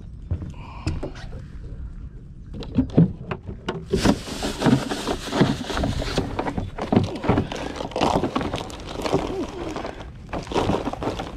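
Handling noise on a plastic floating dock: a run of short knocks and clicks with footsteps, and a denser rustling stretch about four seconds in.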